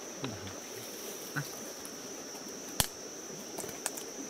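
Insects singing as a steady high-pitched drone, with a few sharp clicks on top, the loudest about three-quarters of the way through.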